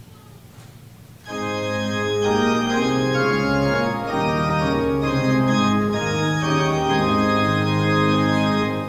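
Organ begins playing about a second in, sustained chords moving from note to note: the closing postlude of the service.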